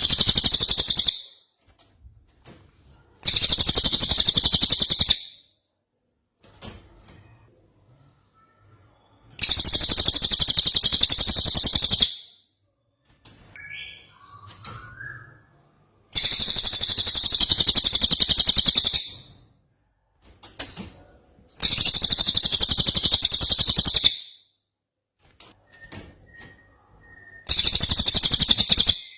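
Songbird song from a cucak jenggot and cililin masteran recording: repeated bursts of rapid, very high-pitched trilling, each two to three seconds long, six times with short pauses between. A few softer, lower calls come in the gaps.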